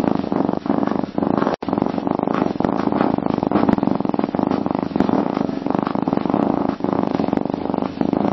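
Domestic cat purring steadily and continuously, with a very brief break about one and a half seconds in.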